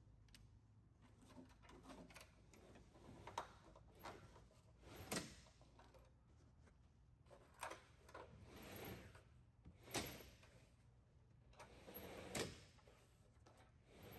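Light knocks and short scraping sounds, one every two seconds or so, over a faint steady hum.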